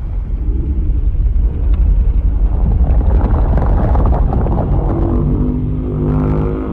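Godzilla sound effect, a deep, loud rumbling growl mixed from Millennium and Legendary Godzilla roars. A steady pitched roar tone comes in about five seconds in.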